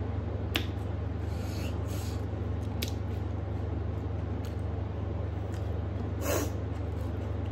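Close-up eating sounds: fingers mixing rice and curry on a metal plate, chewing, and a few light clicks, over a steady low hum. A short, sharp sniff stands out about six seconds in.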